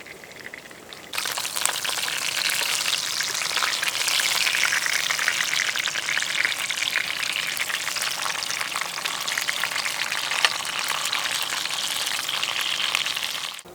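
Perch sizzling and crackling in a frying pan. The dense sizzle starts abruptly about a second in and cuts off just before the end.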